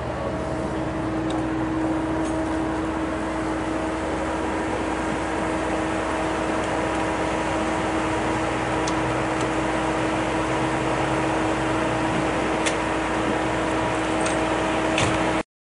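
Steady machine hum of parked emergency vehicles and a mobile command post running, a constant drone with a few faint clicks near the end. It cuts off suddenly just before the end.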